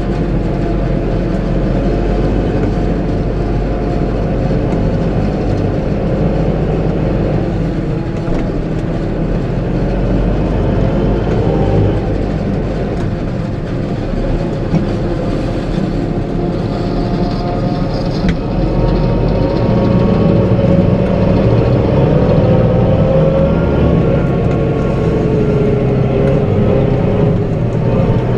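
Farm tractor's engine and drivetrain running steadily, heard from inside the cab, with a few steady whining tones that shift slightly in pitch and grow a little louder in the second half.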